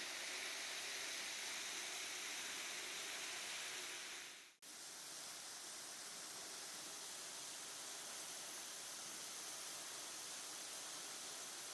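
Steady rushing hiss of a waterfall. It fades out sharply for a split second about four and a half seconds in, then comes straight back slightly duller.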